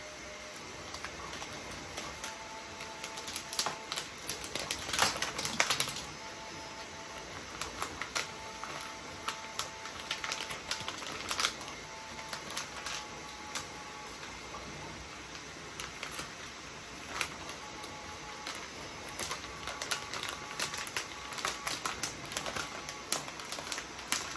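Paper leaflets and a clear plastic parts bag being handled, giving irregular crinkles and rustles. They come thickest about four to six seconds in and again over the last few seconds.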